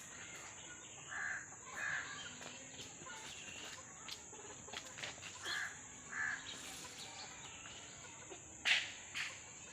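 Bird calls, coming in pairs a few times, the loudest pair near the end, over a steady high hiss.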